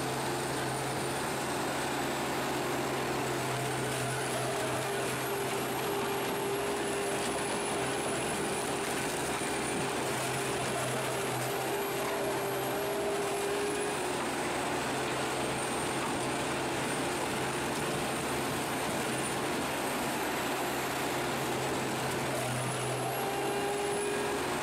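Heavy diesel machinery at work, a stump shredder being loaded by an excavator, running at a steady level with a constant low engine hum. A high whine above it slowly rises and falls every few seconds.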